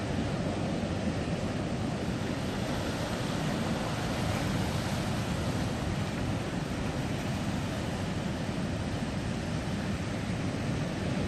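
Heavy ocean surf breaking over an offshore rock ledge and reef: a steady, continuous rush of waves, with wind on the microphone adding a low rumble.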